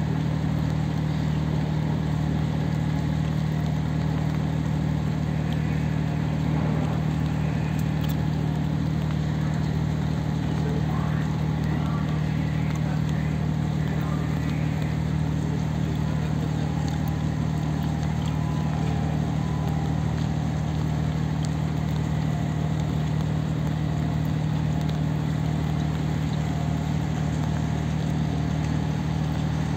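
Steady drone of marine diesel machinery: a low, even hum with one strong pitch that does not change.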